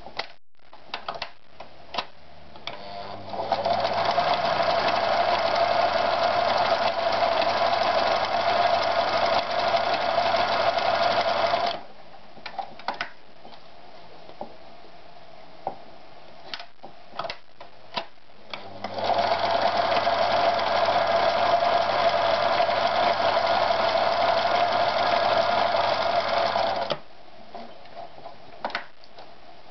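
Privileg TopStar 796 Super Automatic sewing machine stitching denim in two steady runs of about eight seconds each, one starting about three seconds in and one past the middle. Between and around the runs there are scattered clicks.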